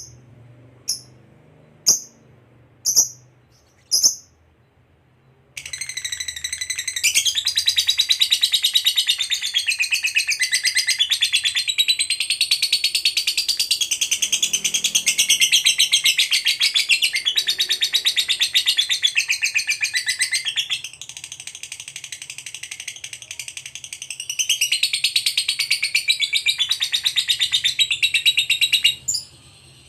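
Lovebird giving a few single sharp chirps about once a second, then breaking into a long, rapid, unbroken high-pitched chatter: the 'ngekek' trill bred for in fighter lovebirds. The chatter runs until near the end and dips quieter for a few seconds past the middle.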